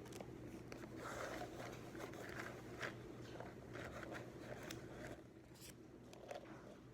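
Quiet room tone with a steady low hum, overlaid by faint rustling and small clicks of studying: paper handled and stationery tapping.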